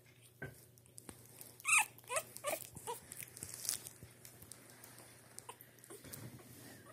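Three-week-old French bulldog puppy squeaking and whimpering: one loud, high squeal about two seconds in, then a few short rising squeaks, then quieter.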